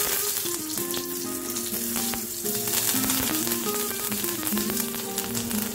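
Fresh curry leaves sizzling in hot coconut oil with mustard seeds and a dry red chilli, a tadka for coconut chutney, with scattered sharp crackles.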